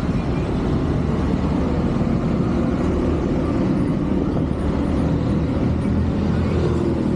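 A motor vehicle engine running steadily, a continuous low rumble.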